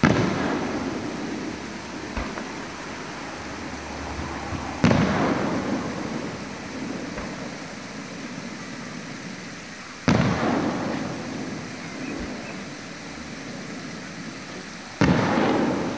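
Aerial fireworks shells bursting overhead: four loud booms about five seconds apart, each followed by a long rolling echo that dies away, with a couple of faint pops in between.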